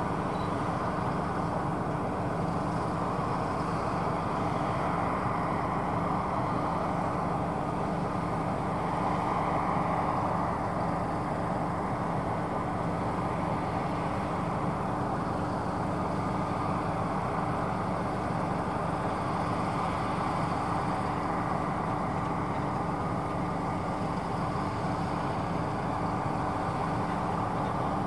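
Claas Tucano 570 combine harvester running steadily: a constant engine and machinery drone with several steady hum tones, unchanging throughout.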